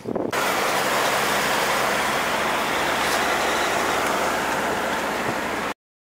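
Steady rush of wind and road noise from a moving vehicle, starting abruptly and cutting off suddenly near the end.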